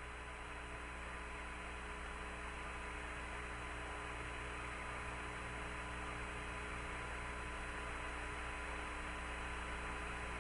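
Steady hiss and hum of an open air-to-ground radio channel between transmissions, with faint steady tones running underneath.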